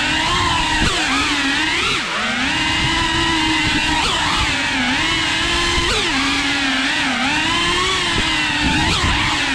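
FPV racing quadcopter's motors and propellers whining, the pitch rising and falling over and over as the throttle changes during fast, low flight.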